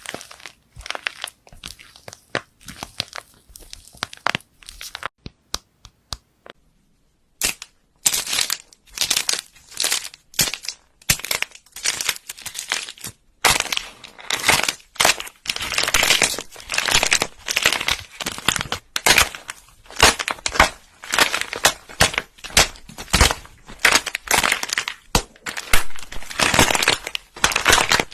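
Slime being squeezed and pressed by hand, giving quick runs of crackling, crunching sounds that pause for a couple of seconds early on and then come thicker and louder.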